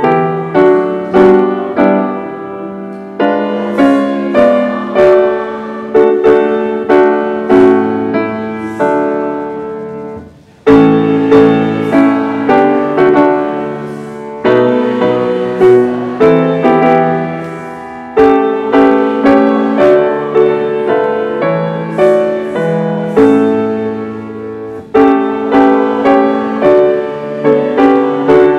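Piano playing in steady chords, with a brief pause about ten seconds in before the music resumes.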